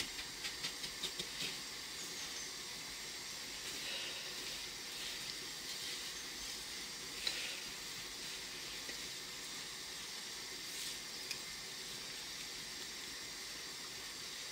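Hands rubbing freshly steamed couscous grains together in a bowl to break up the lumps: a soft, steady sandy rustle with a few light ticks.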